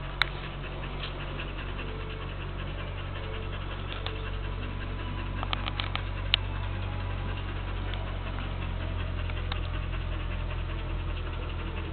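Eurasier mother dog panting steadily, with a few sharp clicks near the start and around six seconds in.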